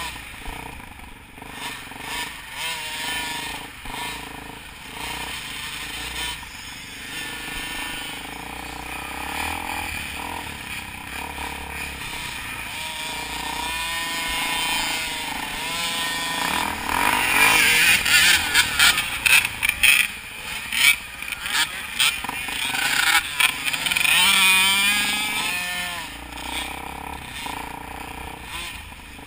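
Dirt bike engines revving up and down on a trail ride, heard from a camera mounted on one of the bikes. Loud knocks and buffeting hit the microphone for several seconds past the middle.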